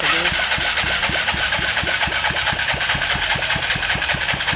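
Electric starter cranking the built Yamaha Mio single-cylinder engine for a compression test: a steady starter whine with regular compression pulses, about seven a second, starting abruptly.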